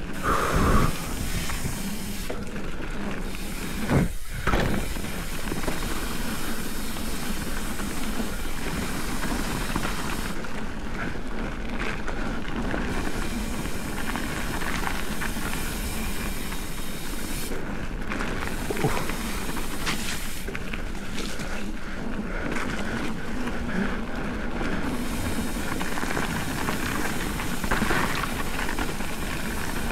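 Mountain bike rolling fast down a dirt and gravel singletrack: a steady rushing noise of tyres on the loose surface and air past the bike, with two sharp knocks in the first five seconds.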